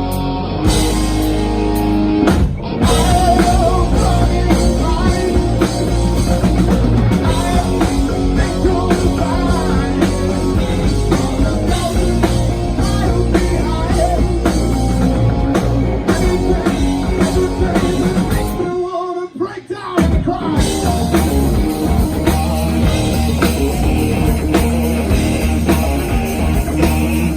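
Rock band playing: drum kit, electric guitars and a singing voice. The band drops out for about a second near the three-quarter mark, then comes back in.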